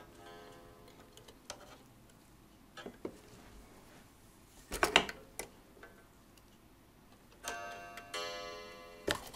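Light clicks and knocks of metal clock parts being handled as the pendulum is unhooked from an Ansonia kitchen clock movement. The touches set off metallic ringing that dies away over a second or so, faintly at the start and more strongly twice near the end.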